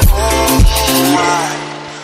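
Electronic remix music with a heavy bass drum beat and synth melody. The beat drops out about a second in, leaving a held note that fades away.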